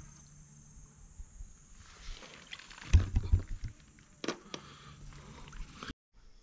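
A hand reaching into a stone water tank, stirring the water, with a cluster of knocks and thumps about three seconds in and another sharp click a second later as the bottle in the tank is handled. The sound cuts off suddenly near the end where the overheated camera shut down.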